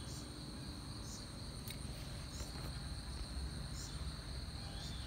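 Insects trilling steadily at a high pitch, with a low rumble underneath.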